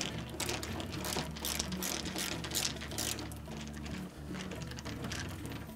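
Nut driver turning a 5/16 screw into a refrigerator's sheet-metal frame: a quick run of clicks as the handle is twisted in short turns, thinning out about halfway through.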